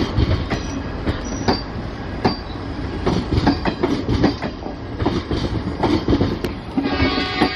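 Indian Railways ICF passenger coaches passing at speed, a steady rumble with the wheels clicking irregularly over the rail joints. Music comes in near the end.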